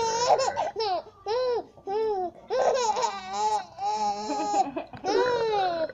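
Baby laughing and squealing in a string of about seven short, high-pitched bursts, the pitch bending up and down in each.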